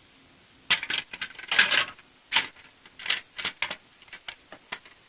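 Hard plastic model kit parts being handled and knocked together: a string of sharp clicks and short rustles that thins out toward the end.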